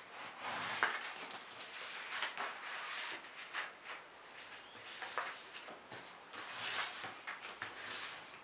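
Paper being handled, folded and torn by hand into small strips: a run of soft, uneven rustles and tearing noises.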